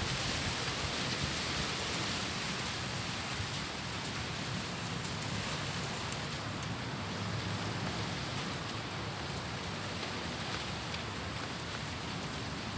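Strong wind blowing through tree leaves: a steady rushing hiss of rustling foliage.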